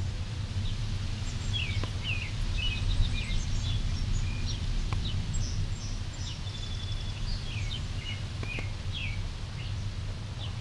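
Several small birds chirping and calling, with short rising and falling notes and a few quick trills, over a steady low rumble.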